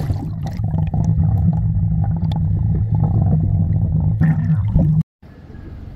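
Muffled underwater sound from a submerged camera: a steady low churning rumble of water and bubbles with small knocks as the swimmer moves. It cuts off abruptly about five seconds in to a quieter steady background.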